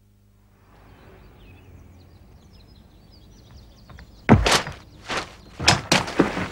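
Faint outdoor ambience with a few bird chirps, then four loud thuds or knocks in quick succession in the second half.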